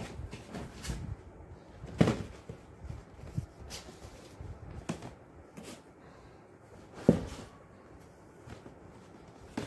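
Cardboard boxes and packaged items being handled and set down: a few scattered knocks and rustles, the sharpest about two seconds in and again about seven seconds in.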